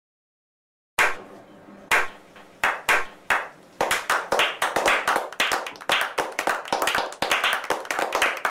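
A small group of people clapping a slow clap: a few single claps spaced out after about a second of silence, quickening into steady applause from about four seconds in.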